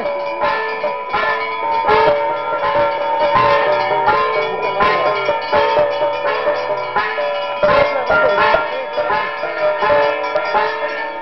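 Puja music at a naga shrine: metal bells ringing continuously with repeated drum strikes.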